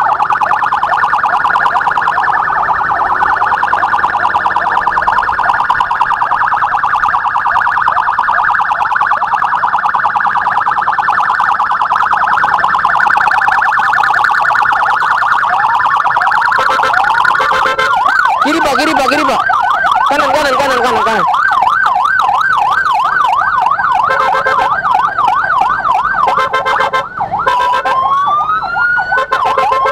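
Emergency vehicle siren sounding continuously and loudly, first as a rapid warble, then, just past the middle, switching to a slower up-and-down yelp, with a second, lower siren tone falling in pitch for a few seconds. Near the end it changes to a rising wail.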